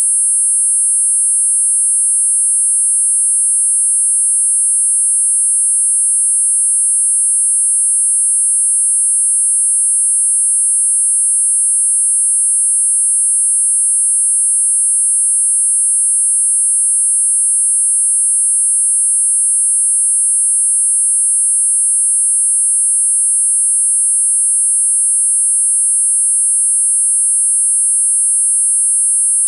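Four synthesized high-pitched sine tones at 8.5, 9, 10 and 10.5 kHz sounding together, steady and unchanging, as a tinnitus masker.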